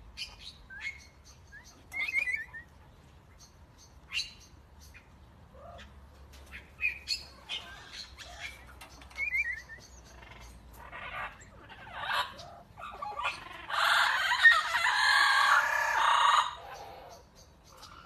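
Red-fan parrots at a nest hole giving short chirps, clicks and squeaks, with a couple of quick trills. A loud, harsh squawking about three seconds long comes near the end.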